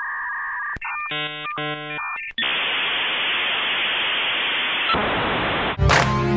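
Electronic sound effects: a steady beep tone, then about a second of rapid computer-style bleeps, then about three seconds of hissing static. The static cuts off just before the end, as music comes in.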